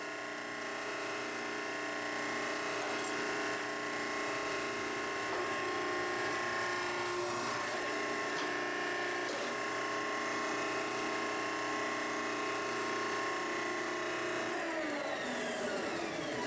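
Hydraulic press of the log-splitter type with its pump running steadily while the ram presses a hot rivet into the header die. Near the end the pump is shut off and winds down, its pitch falling.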